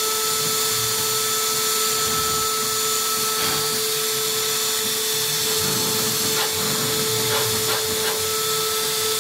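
Tabletop CNC mill's spindle motor running with a steady whine as its engraving bit mills copper traces on a printed circuit board.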